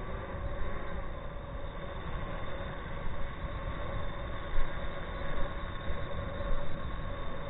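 Swellpro Splash Drone 4 quadcopter hovering close by, its four propellers giving a steady hum of several pitches, with gusty wind buffeting the microphone.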